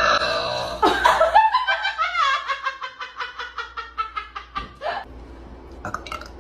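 A woman giggling: a quick run of high-pitched laughs, about six a second, falling slightly in pitch and fading out about five seconds in.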